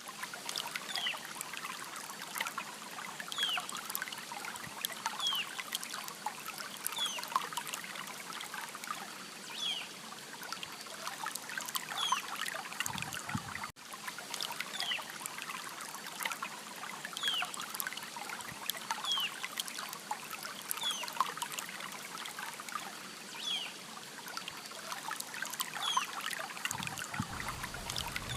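River water trickling and burbling steadily, with a bird repeating a short falling chirp about once a second. The sound drops out briefly about halfway through.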